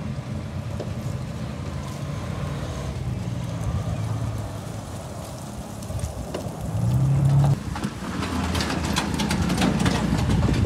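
Steady low hum of a running motor vehicle engine, which swells into a louder pass about seven seconds in. Light clicks and knocks become frequent near the end.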